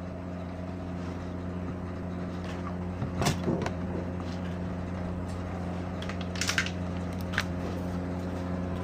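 A Turbo rice cooker's lid being unlatched and opened, a sharp click about three seconds in followed by a few light knocks. A steady low hum runs underneath.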